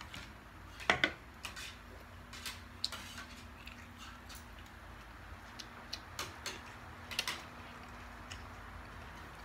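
Eating by hand at a table: scattered short, sharp clicks and light clinks of fingers, plates and dishes, loudest as a pair about a second in and a cluster around seven seconds. A faint steady hum runs under them.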